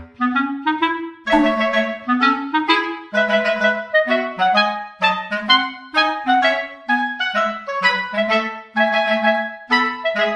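Background music: a clarinet-led tune played in short, bouncy notes at a steady beat.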